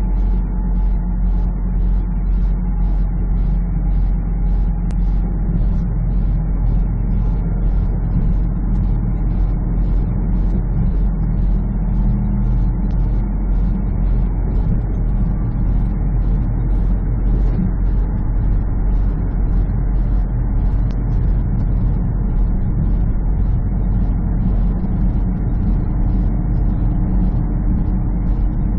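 Semi truck's diesel engine and tyre noise heard inside the cab while cruising at highway speed: a steady low drone with engine tones, and a faint ticking about twice a second.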